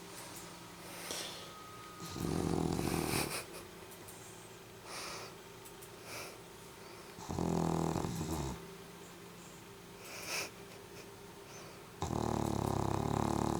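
A dog snoring in its sleep: three loud snores about five seconds apart, each lasting about a second, with softer breaths between them.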